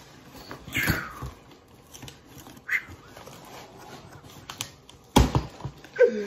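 A cardboard shipping box being handled: scattered scrapes and taps, with one loud knock about five seconds in. A man's breathy laughter near the end.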